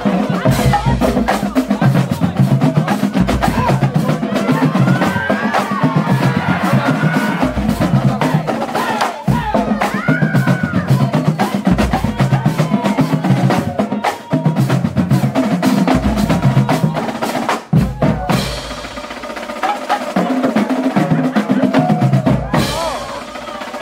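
Marching band drumline playing a cadence: rapid snare drum strokes over a repeating bass drum beat. The low drums drop out for a few seconds near the end, then the full beat comes back in.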